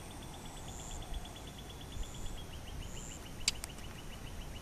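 A steady run of short, high-pitched chirps, about ten a second, dropping slightly in pitch about halfway through, over an outdoor background, with two sharp clicks about three and a half seconds in.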